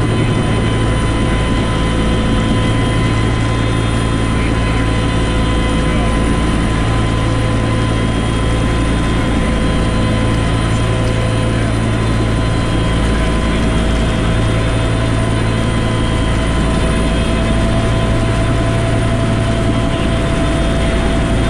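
Bell UH-1 'Huey' turbine helicopter in forward flight, heard from inside the cockpit: a loud, steady low drone with several constant whining tones over it. One of the whining tones drifts slightly higher in the second half.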